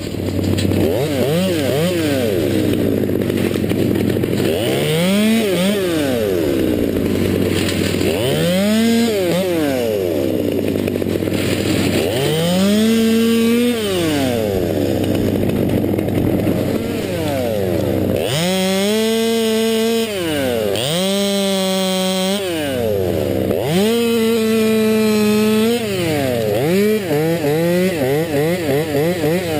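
Stihl 200T top-handle chainsaw revved up and back down again and again, rising to full speed and falling to idle every few seconds. Between about 18 and 26 seconds in it is held at full speed for a second or two at a time. A steady low engine hum runs underneath.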